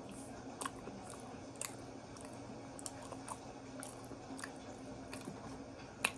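Close-miked chewing of waffle: soft, scattered wet mouth clicks and crunches every half second to a second, over a faint steady hum.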